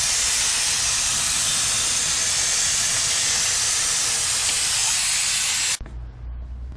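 Compressed-air blow gun giving a steady hiss that cuts off abruptly near the end.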